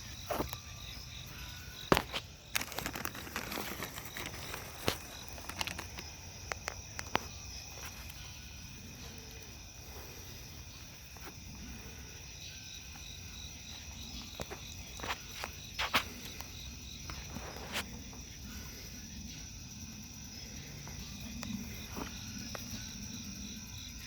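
Night insects chirping steadily in high, even tones, with scattered sharp clicks and knocks, the loudest about two seconds in and again near sixteen seconds.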